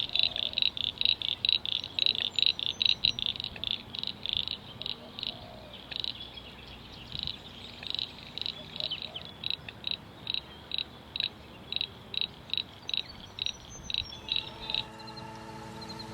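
A steady, rhythmic chirping call of about three short high-pitched pulses a second, which stops abruptly near the end.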